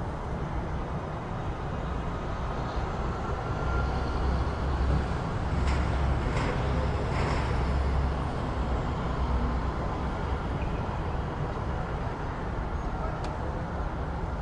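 City street ambience: steady traffic noise, with a vehicle's low rumble growing louder from about four seconds in and fading again after about eight. A few short clicks sound in the middle and once near the end.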